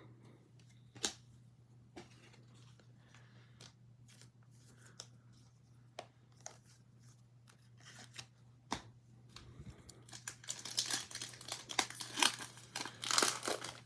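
Trading-card pack wrapper being torn open and crinkled, a dense crinkling run near the end. Before it come scattered light clicks and taps of cards being handled.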